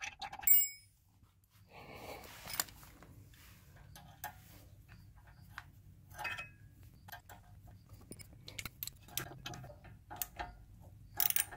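Metal lug bolts being threaded by hand through a new brake rotor into the wheel hub: scattered light metallic clicks and rattles, with a ringing clink about half a second in and a few louder clicks near the end.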